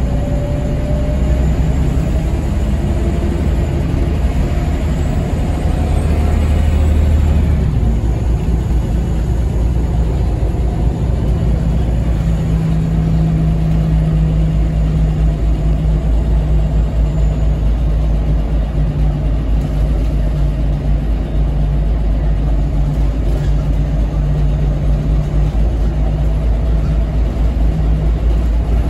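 Scania L94UB city bus heard from inside the passenger cabin, its Scania DSC9 diesel engine and ZF Ecomat automatic pulling the bus along with a deep rumble. The engine sound rises over the first several seconds, drops off about seven seconds in, then settles into a steady drone.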